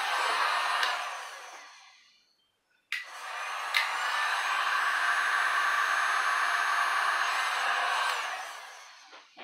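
Handheld electric heat gun blowing steadily, then switched off with its fan winding down over about a second. About three seconds in it clicks back on, runs steadily for around five seconds, and is switched off again, winding down near the end.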